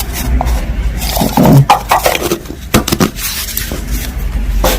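Costume jewelry and small items being handled and rummaged through in a box: a few scattered clinks, knocks and scrapes over a low steady hum.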